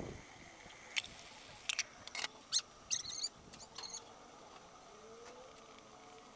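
Scattered sharp pops and crackles from vegetables cooking in a covered wok, some single, some in quick little runs, from about a second in to about four seconds in.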